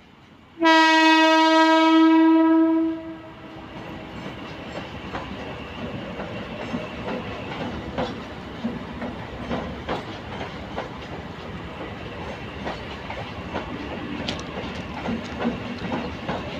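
A Mumbai suburban local train sounds one loud, steady horn blast of about two seconds. It then runs past with a steady rumble and the clickety-clack of its wheels over the rail joints.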